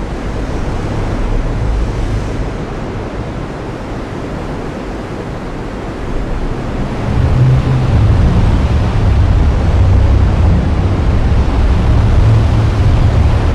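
Heavy rain falling in a steady hiss, with a deep low rumble that swells about halfway through and stays loud.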